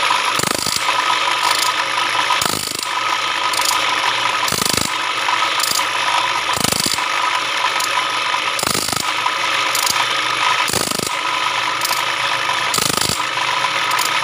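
Home-made band saw blade sharpener running: a thick cutting disc on a washing-machine spin-dryer motor spins with a steady whine. The feed mechanism clicks through regular strokes about once a second, every other one stronger, as the blade's teeth are ground level one after another.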